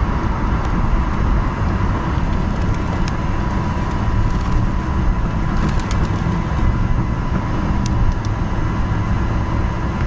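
Steady rumble of road traffic, with a thin, steady high whine running under it.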